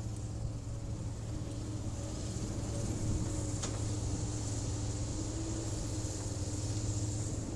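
Hydraulic excavator's diesel engine running steadily with a low hum, with a single short click about three and a half seconds in.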